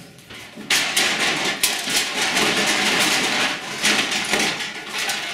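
Close, loud rustling and knocking as the camera is picked up and repositioned, with a canvas work jacket brushing against the microphone.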